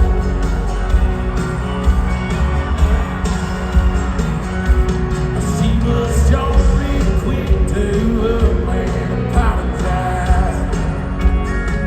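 Live country band playing with a lead singer, heavy bass and drums under the vocal.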